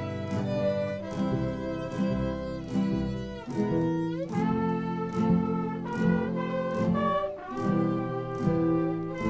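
Student mariachi ensemble playing: violins and trumpets carry the melody over guitars and vihuelas strumming chords on a steady beat, with a rising slide in the melody about four seconds in.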